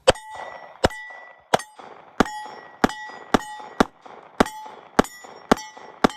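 CZ P10C 9mm pistol firing a steady string of about eleven shots, roughly two a second, most of them followed by the ringing of a struck steel target.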